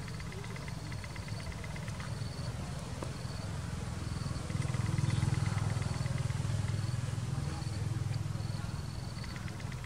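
Low steady rumble that swells for a few seconds in the middle, with short high insect chirps repeating throughout and stretches of higher buzzing.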